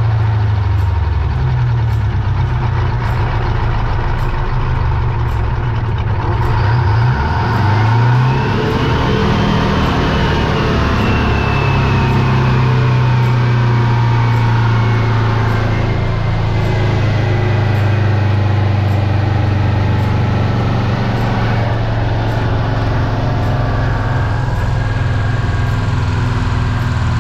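1956 Greyhound Scenicruiser's diesel engine running close up through an open floor hatch as the bus is driven. Its pitch rises and dips near the start and again about eight seconds in. A high whine climbs, then slowly falls away through the middle.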